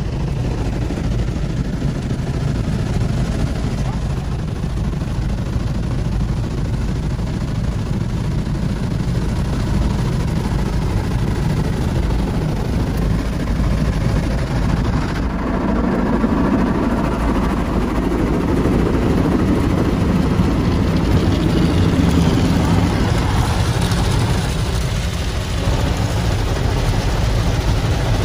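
Automatic car wash heard from inside the car: a steady rumble of the wash machinery with water spraying and brushes washing over the car body and windows, louder and fuller from about halfway through.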